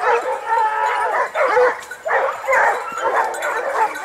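A pack of boar-hunting scent hounds giving tongue, several dogs baying at once with long drawn-out notes and shorter yelps: hounds on a wild boar's scent.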